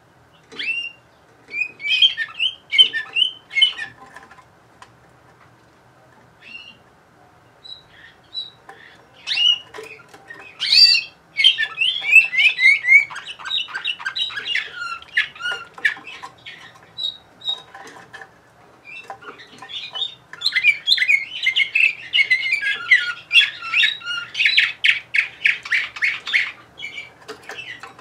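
Domestic canary singing: three bouts of quick chirps and warbled trills, the last ending in a fast, evenly spaced trill, with short pauses between bouts.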